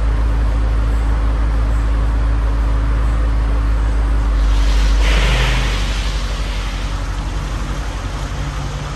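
2023 Range Rover Autobiography's 4.4-litre twin-turbo V8 running at idle behind its exhaust tips, a steady low drone. About five seconds in there is a short surge as the SUV pulls away, and the sound then eases to a soft, even low pulse as it moves off.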